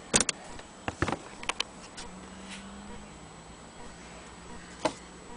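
A few scattered clicks and knocks from handling small objects on a tabletop: sharp ones near the start and about a second in, a quick pair at about one and a half seconds, and one more near the end.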